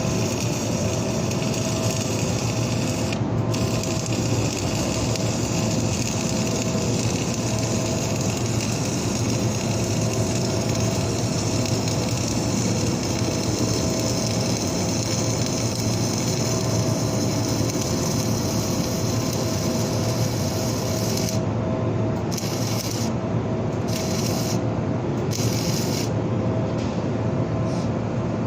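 Flux-core arc welding: a steady crackling, sizzling arc as a vertical-up cover pass is run. Near the end the arc breaks off briefly several times, stopping and starting to fill the crater at the top of the weld.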